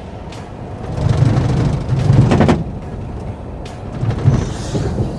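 A safari vehicle's engine rumbles low, swelling louder about a second in and again around four seconds.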